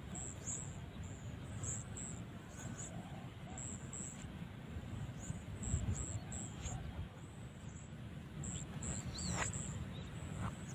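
Spotted dove cooing faintly over a steady low rumble, with short high-pitched chirps repeating in the background.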